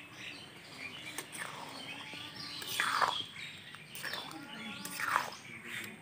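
Birds chirping, with two louder calls that fall in pitch about halfway through and near the end. A metal spatula gives a few light taps against the steel pan as the rice is stirred.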